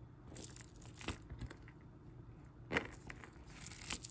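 A metal link chain necklace clinking faintly as it is handled and moved about on a mat, a few light clicks with two sharper ones in the second half.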